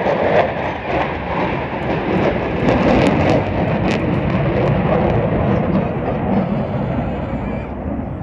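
Steady roar of jet engines from a pair of military fast jets flying past in formation.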